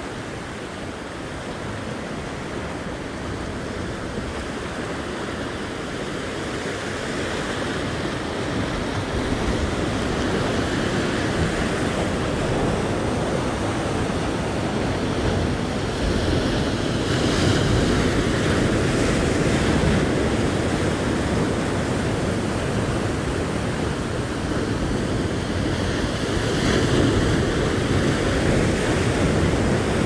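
Ocean surf breaking and washing over rock ledges, a continuous rushing noise that swells with each set of waves, loudest about halfway through and again near the end.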